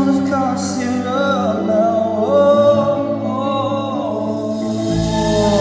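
Live music: a man singing a held, sliding melody over instrumental accompaniment, with a low rumble coming in near the end.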